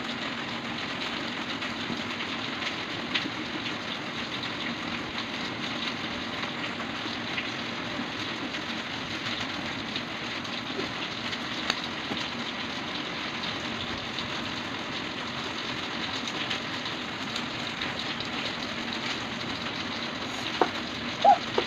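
Faint scratching of a colored pencil on paper over steady background noise, with two sharp clicks near the end.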